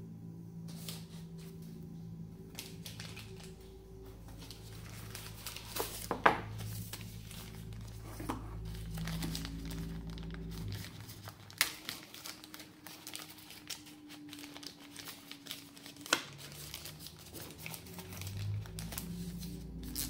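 Clear plastic packaging bag crinkling as it is handled and pulled open, with a few sharper crackles, over background music.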